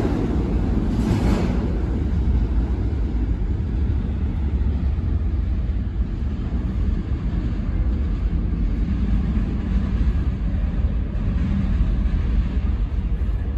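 New York City subway train rumbling in the tunnel. The noise is louder for about the first second as the train pulls away, then settles into a steady low rumble.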